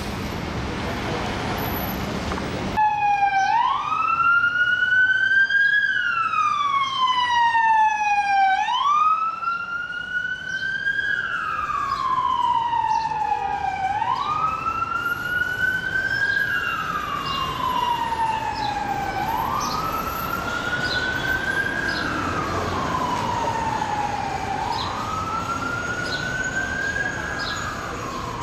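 Street and engine noise for the first few seconds, then a fire truck's siren on a slow wail, rising and falling about every five to six seconds.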